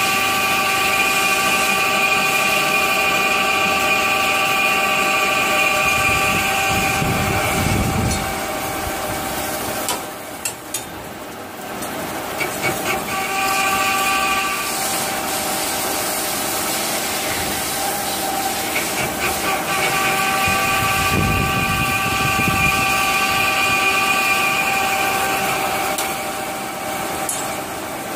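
CNC lathe turning a metal part, its spindle and cut giving a steady whine of several held tones over a hiss as long stringy chips peel off. The whine drops away about a third of the way in, a few clicks and knocks follow, and it comes back in the second half.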